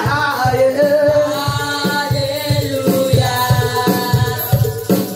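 Live church praise music: a woman sings lead into a microphone, holding long notes, over drums keeping a steady beat of about two a second.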